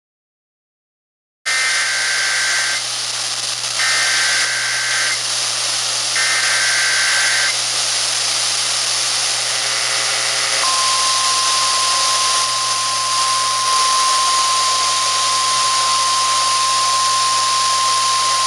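Emergency Alert System activation received on NOAA Weather Radio over a steady static hiss: starting about a second and a half in, three rasping SAME digital header bursts, each a bit over a second long and about a second apart, then the single-pitch weather radio warning alarm tone held steady for about nine seconds.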